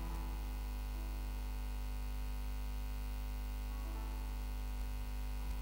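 Soft background music of held chords, changing near the start and again about four seconds in, over a steady electrical mains hum from the sound system.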